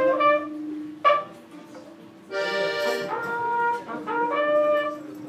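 Live instrumental music: sustained melody notes over a steady held low note, with a short quieter gap about a second in.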